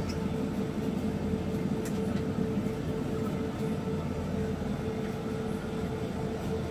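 Steady city street background: a continuous low rumble with a constant mid-pitched hum, no single event standing out.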